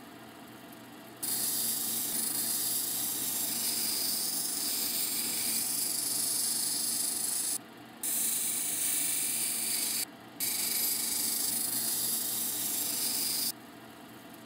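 Tiger eye stone being ground against a wet 80-grit sintered diamond wheel, shaping its 45-degree bevel: a steady hissing grind starts about a second in, breaks off twice for a moment and stops near the end. The cabbing machine's quieter running lies under it.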